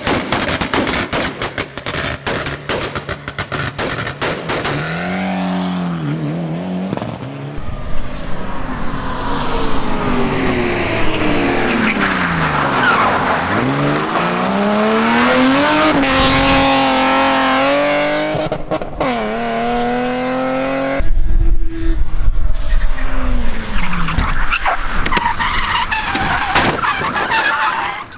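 Rally car engines driven hard in a run of short clips. First a Mitsubishi Lancer Evolution X with rapid crackling and popping. Then a BMW 3 Series (E36) whose revs rise and fall as it drifts with tyres skidding, and from about 21 s in, a Citroën Saxo's engine revving hard.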